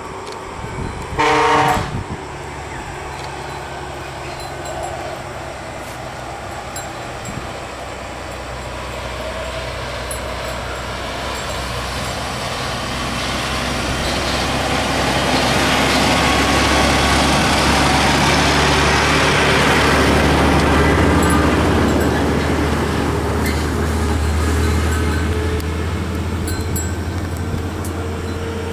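A short horn blast about a second in, then a heavy vehicle passing: its rumble builds slowly, is loudest about two-thirds of the way through, and fades.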